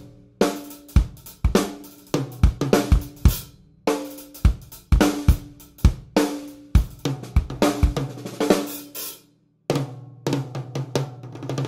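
A drum kit with new Evans drumheads played with sticks: a groove on snare, bass drum, hi-hat and cymbals, with the drums ringing on between hits. It stops for a moment about nine seconds in, then comes back with a busier pattern.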